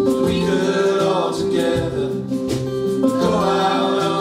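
Live band playing a country-folk song, with several voices singing the chorus together.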